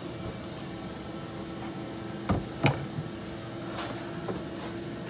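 Two sharp knocks of hand tools on a wooden workbench, about half a second apart, as a plane is put down and a file taken up, followed near the end by a few faint strokes of the file on the wood. A steady low hum and a thin high whine sit underneath.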